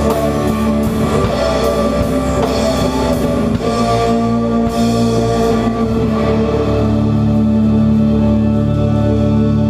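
A small rock band playing live: drum kit with cymbals, electric guitar and keyboard. About six seconds in the drumming stops and a held chord rings on, as at the close of a song.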